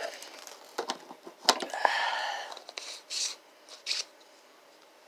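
Handling noises from craft supplies on a tabletop: a few light clicks and knocks, with short stretches of rustling about two and three seconds in.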